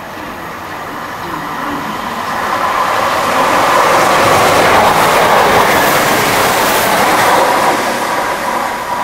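Class 165 diesel multiple unit passing through a station. Its noise grows as it approaches, is loudest from about four to seven seconds in as it goes by, then fades as it runs away.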